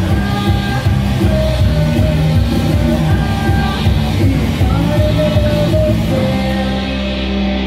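A rock band playing live, with a woman singing over electric bass and drums. About six seconds in, the band settles onto a long held chord.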